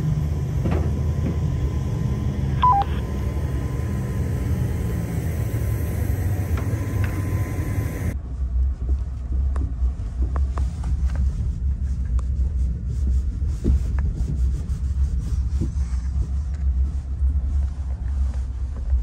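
For about the first eight seconds, a steady low rumble with a thin steady hum and a short two-note electronic beep. Then, from about eight seconds in, the low rumble of tyres and suspension inside an electric SUV's cabin as it drives over rough desert ground, with frequent small knocks and rattles and no engine note.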